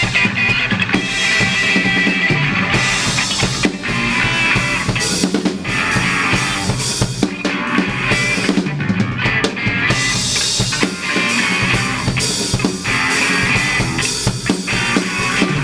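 Live funk rock trio playing an instrumental passage: electric guitar, slap bass and drum kit.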